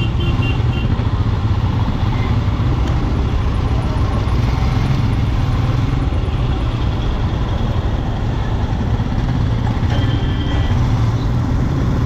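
Royal Enfield Scram 411 motorcycle engine running steadily on the move, a loud continuous low rumble with traffic noise around it. A few short high beeps come about ten seconds in.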